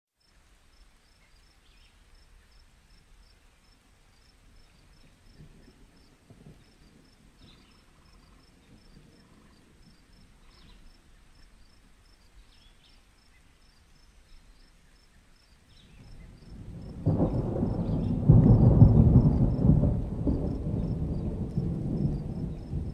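Ambient rain-and-thunderstorm track: soft rain with a faint, regular high chirping, then a long, loud roll of thunder that swells about sixteen seconds in and slowly dies away.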